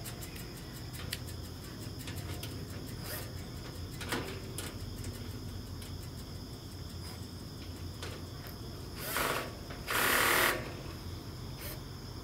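Crickets trilling steadily, a continuous high-pitched drone. About nine and ten seconds in, two short bursts of noise from handling the cart parts and tools rise above it.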